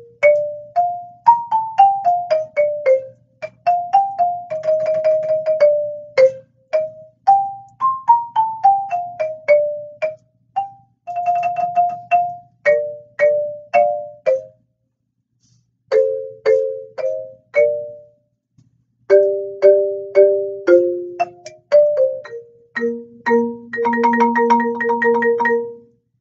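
Marimba played with yarn mallets: single struck notes in mostly stepwise descending phrases, with short rolled passages, two brief pauses in the second half, and a sustained rolled chord near the end before it stops.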